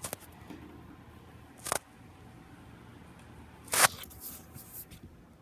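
Handling noise from a phone being moved and rubbed against hand or clothing: a few short scraping rustles, the loudest a little under four seconds in, followed by several smaller ones.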